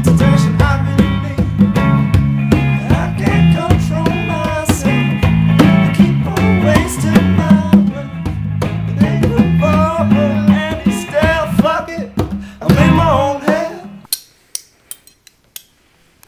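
Small rock band playing live with electric guitar and drums over a steady bass line. The music stops abruptly about two seconds before the end, leaving a few sharp clicks.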